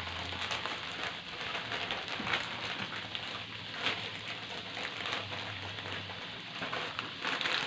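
Plastic wrappers of Oreo biscuit packs crinkling and crackling irregularly as they are handled.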